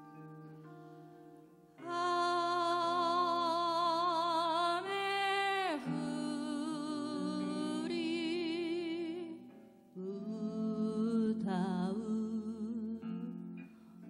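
A woman singing a slow song with strong vibrato, accompanied by a sanshin and a guitar. Plucked notes open, then her voice enters about two seconds in on a long held note that slides down near the middle, pauses briefly near ten seconds, and resumes.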